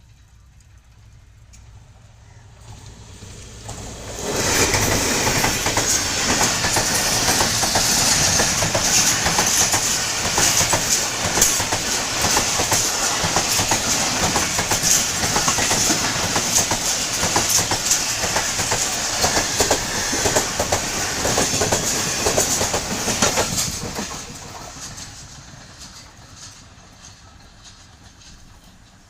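A train passing by, its wheels clattering over the rail joints. It builds over the first few seconds, runs loud for about twenty seconds, then dies away over the last few.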